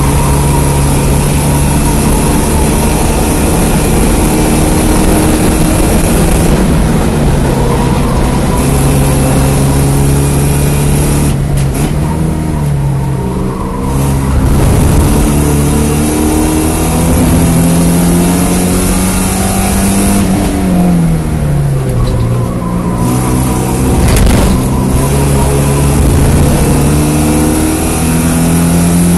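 The 1987 Porsche 924S's 2.5-litre inline-four engine running hard at race pace. Its pitch climbs through the gears with brief breaks at the shifts, drops steeply about two-thirds of the way through as the car slows, then climbs again.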